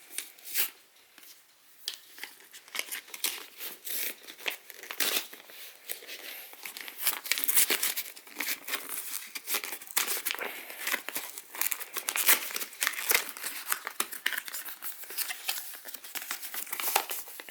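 Packaging crinkling and tearing as a tightly glued box is pried open by hand: a dense, irregular run of crackles and rips, busier in the second half.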